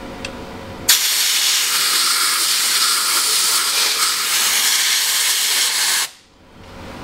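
Compressed-air blow gun hissing in one steady blast of about five seconds, starting about a second in and cutting off suddenly. The air is blowing loose, poorly bonded factory e-coat paint off a rusting vehicle frame.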